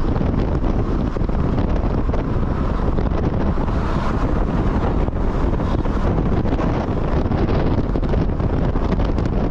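Wind buffeting the microphone over the steady noise of a moving vehicle on the road.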